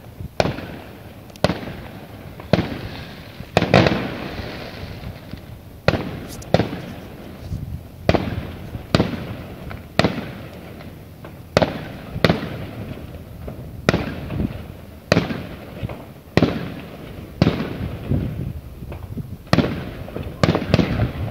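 Aerial fireworks bursting in a steady barrage, about one bang a second at uneven spacing, each bang trailing off in an echoing rumble.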